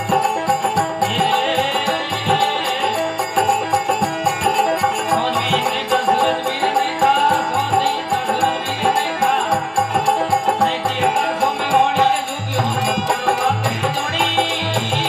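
Rajasthani folk bhajan music: an organ holds steady notes and plays a wavering melody over a steady rhythm of hand drums and shaken rattles.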